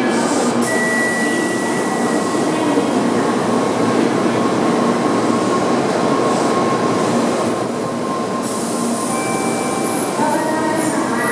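N700-series Shinkansen train cars running past along the platform: a steady, loud rush of rolling wheels and running gear, with thin high whines coming and going.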